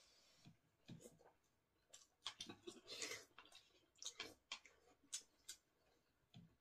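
Faint, scattered clicks and taps of wooden spoons against wooden soup bowls, with soft sipping as spoonfuls of cabbage soup are taken.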